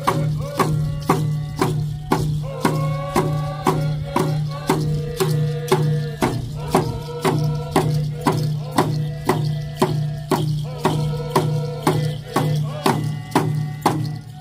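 A drum beaten steadily about twice a second, with voices singing in held, chant-like phrases that fall away at their ends. A steady low hum runs beneath.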